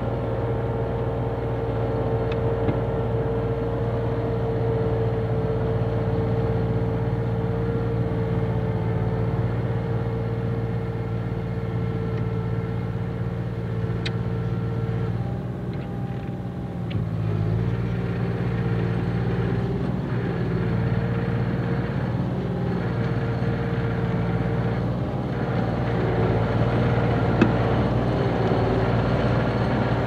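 Bulldozer engine running under steady load while clearing topsoil, with a steady whine above the engine note. About sixteen seconds in, the engine pitch drops and the sound dips for a second, then picks back up, with a couple of faint clanks.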